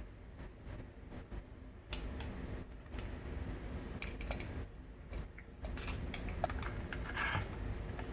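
Light scattered clicks and metal clinks of engine parts being handled as the clutch outer basket is fitted onto the shaft of an open two-stroke dirt bike crankcase, with a short run of clinking about seven seconds in, over a low steady hum.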